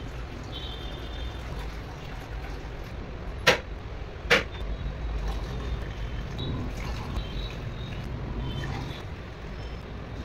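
Steady low background rumble, with two sharp knocks about a second apart near the middle.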